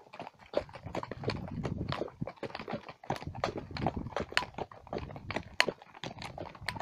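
Horses' hooves clip-clopping on a stony dirt track as the horses walk: an uneven run of sharp hoof strikes, several a second.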